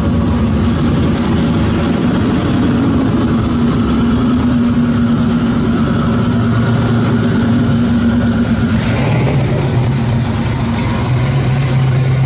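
Twin-turbo Corvette V8 idling steadily. About nine seconds in, the engine note drops lower and a hiss joins in.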